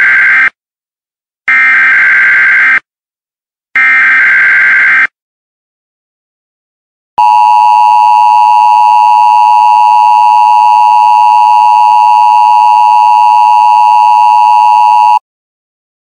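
Emergency Alert System SAME header: three loud electronic data bursts of about a second each, the first already under way. After a pause of about two seconds comes the EAS attention signal, a steady two-tone alarm held for about eight seconds.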